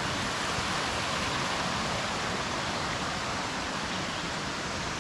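Mountain stream rushing over rocks, a steady even sound of flowing water.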